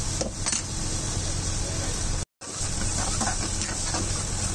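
Thick sauce sizzling in an aluminium wok on an induction cooktop, with a steady hiss and low hum, while a steel spoon stirs and scrapes it. The sound cuts out for a moment a little past halfway, and several short spoon scrapes follow.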